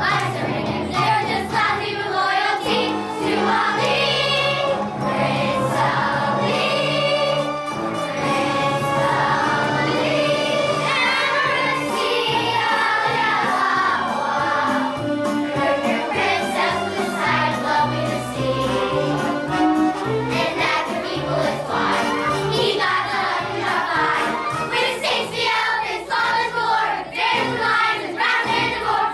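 A children's musical-theatre chorus singing a song together over instrumental accompaniment with a steady bass line.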